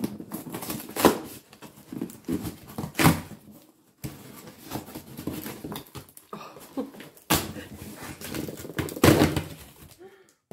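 Packaging rustling and crinkling as products are dug out of a cardboard delivery box, with several louder crackles and knocks as items are pulled out.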